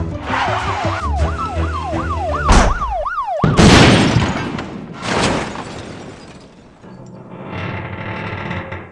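Police car siren in quick rising-and-falling sweeps over music with a bass line. It cuts off about three and a half seconds in with a loud crash, the police car hitting a guard rail, and a second impact follows a second and a half later.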